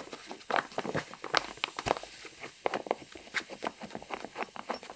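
Irregular light clicks and rustles of hands handling the airbag vest's inflation bag and unscrewing the spent CO2 canister from its mechanical trigger.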